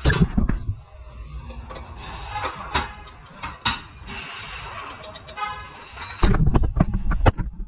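Metal clinks and knocks of hand tools and parts being handled at a car's front suspension in a repair shop, with a louder low noise full of knocks for about a second near the end.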